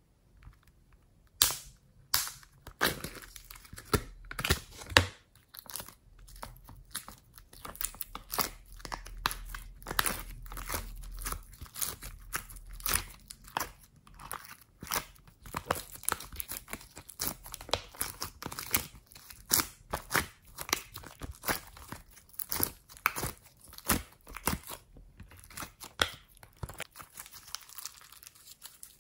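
Hands squeezing, kneading and stretching homemade slime with foam pieces and beads mixed in, making a dense run of sticky crackles, pops and clicks. The sharpest snaps come in the first few seconds.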